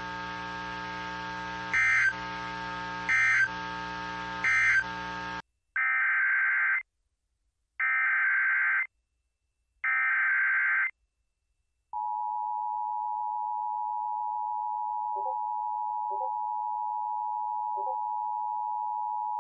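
Emergency Alert System signalling. Three short end-of-message data bursts sound over a steady hum, followed by three one-second header data bursts with silent gaps between them. About twelve seconds in, the steady two-tone attention signal begins and holds.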